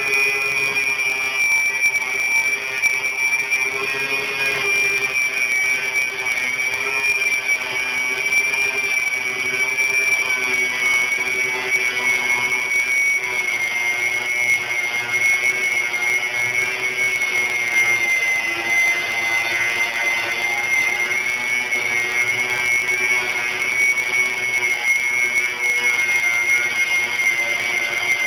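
Handheld electric grinder running continuously with a steady high whine as it grinds paint and rust off a steel oil tank. Its pitch sags slightly about two-thirds of the way through.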